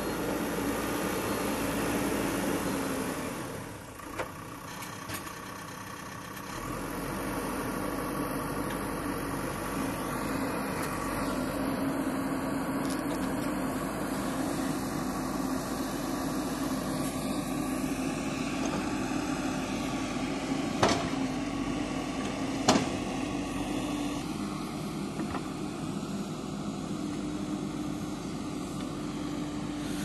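JCB 3DX backhoe loader's diesel engine running steadily as the machine works, dropping briefly in level a few seconds in. Two sharp clanks about two seconds apart, a little past two-thirds of the way through, are the loudest sounds.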